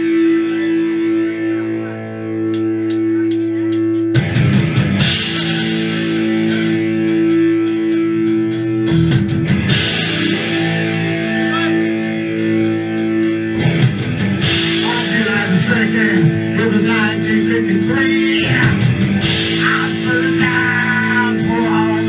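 Live rock band of electric guitars, bass and drum kit playing. A held guitar chord rings for about four seconds, then the drums and full band come in and play on.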